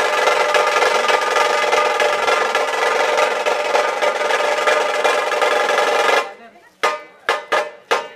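Nashik dhol drums playing a fast, dense roll that stops suddenly about six seconds in, followed by four separate strokes near the end.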